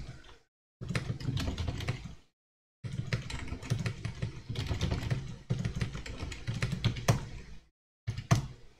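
Typing on a computer keyboard: a quick run of key clicks over a steady low hum, stopping briefly a few times.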